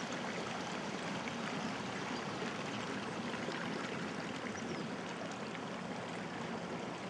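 Steady running water of a stream.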